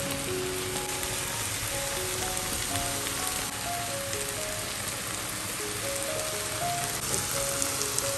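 Ground meat, mushrooms and green bell pepper frying in a pan, a steady sizzling hiss, with soft background music playing a slow melody of held notes.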